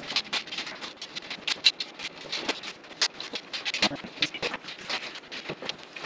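Irregular small clicks and rattles of bolts and nuts being pushed through holes and fitted by hand on a steel workbench frame and pegboard.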